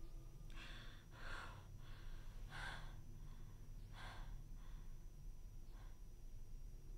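A woman breathing hard in faint gasps, about six breaths at irregular intervals of roughly a second, the strongest about two and a half seconds in, over a low steady hum.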